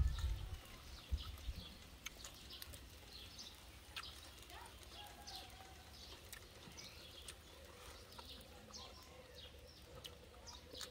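Quiet yard ambience with small birds chirping over and over in the background, and a few faint clicks.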